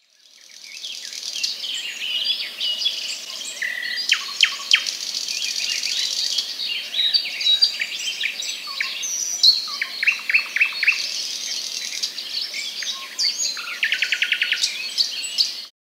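A chorus of birds chirping and whistling, many short calls overlapping, with a fast rattling trill near the end. It fades in over the first couple of seconds and cuts off abruptly.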